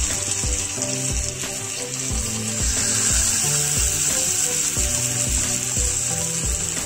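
Marinated pearl spot fish sizzling as they fry in hot coconut oil in a pan, the sizzle growing louder a little over two seconds in. Background music with a steady beat plays underneath.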